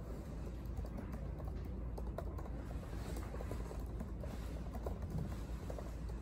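Typing on a laptop keyboard: quick, irregular keystroke clicks over a steady low room hum.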